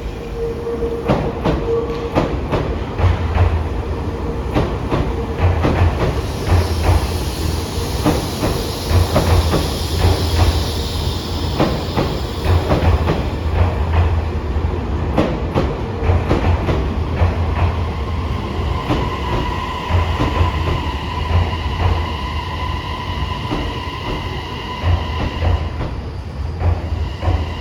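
Toei Mita Line 6500-series subway train running along the track, with a low rumble and a dense run of wheel clicks over the rails. About two-thirds of the way through, a steady high whine sets in.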